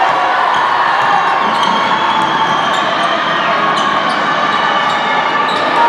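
Basketball being dribbled on a wooden court in a sports hall, with short sharp bounces over a steady murmur of spectators' voices.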